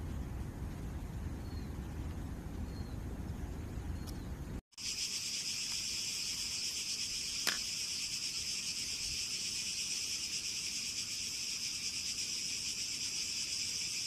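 Low rumbling noise, then after a sudden cut a steady, high-pitched insect chorus that runs on without a break. A single short click comes partway through the chorus.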